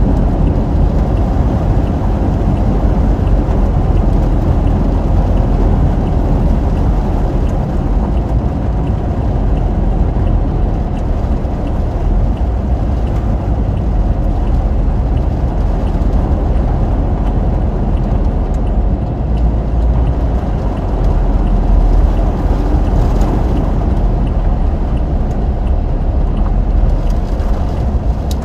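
Steady low rumble of motor vehicles on the road, an even noise heaviest in the low range, with no distinct pass-bys or horns.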